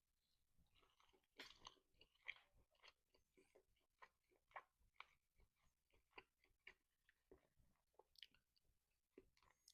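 Faint chewing on a piece of smoked brisket point: a string of soft, irregular mouth clicks.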